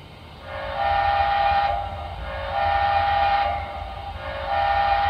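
Sound-equipped HO-scale Broadway Limited Texas & Pacific 2-10-4 steam locomotive model blowing its steam whistle through its onboard speaker: three long blasts of about a second each, over a steady low rumble.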